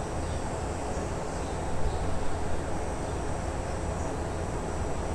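A Brazilian Terrier (Fox Paulistinha) snoring in its sleep: a low, steady snoring that grows louder for a moment about two seconds in.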